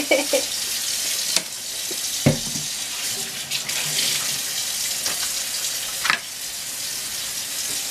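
Kitchen tap running water into the sink, a steady hiss, with a few short knocks and clatters of things handled in it.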